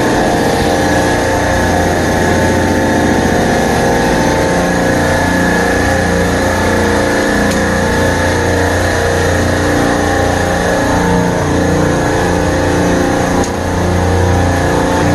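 Supermarket refrigeration rack compressors running together: a loud, steady machine-room drone with a strong low hum and a few steady whining tones above it.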